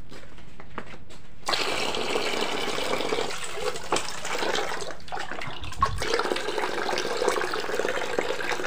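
Soaking water poured off a plastic bowl of tofu cubes, running and splashing down steadily; the pour starts about a second and a half in. A brief low knock comes about six seconds in.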